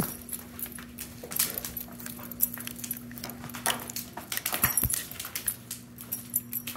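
A nervous dog panting as it is led across unfamiliar flooring, its metal chain collar jingling in short irregular clinks; the panting is a sign of his stress.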